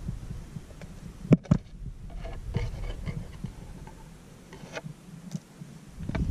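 A twig tapping and scraping inside a plastic car door pocket: two sharp knocks about a second and a half in, then faint scratching and light ticks.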